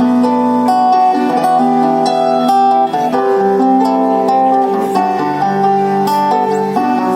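Instrumental break of a live pop song with no singing: a band playing a melody of held notes over changing chords.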